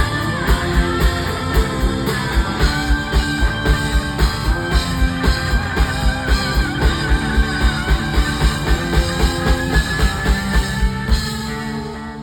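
Live rock band playing an instrumental break: electric guitar lead holding one long, wavering note over a steady kick-drum beat of about three hits a second. The band drops away about eleven seconds in.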